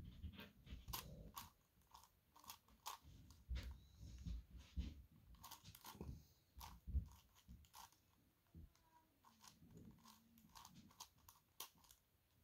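Plastic faces of a 5x5 dodecahedron puzzle (Gigaminx) being twisted by hand: faint, irregular clicks and scrapes, a few a second, with a sparser stretch about two-thirds through.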